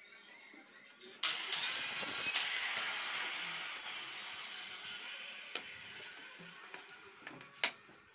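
A corded handheld electric power tool switches on suddenly about a second in with a loud high whine and hiss, then winds down slowly over the next several seconds. Two sharp knocks of wood near the end.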